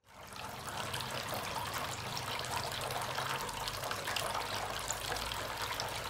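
Water trickling and splashing steadily as it spills from the spouts of a small homemade tabletop waterfall fountain into its basin, fading in at the start.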